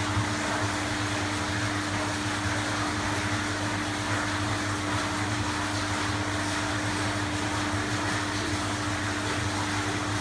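Steady machine hum: one constant low tone over a low rumble and an even soft hiss, unchanging throughout.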